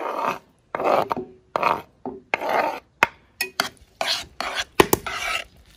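Metal spoon scraping diced tomato off a wooden cutting board into a steel pot: a quick series of short rasping scrapes, many starting with a sharp click of metal on wood or on the pot rim.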